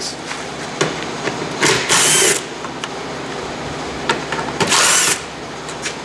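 Power drill with a T40 Torx bit backing out two screws: two short whirring bursts, about three seconds apart.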